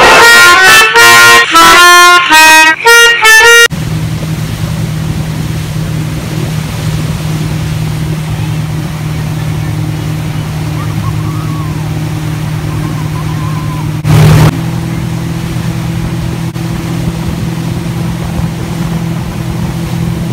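Music with short, sharp notes for the first few seconds, cutting off abruptly. Then a motorboat's engine runs with a steady drone under water and wind noise as it tows a wakeboarder, with one brief loud thump about 14 seconds in.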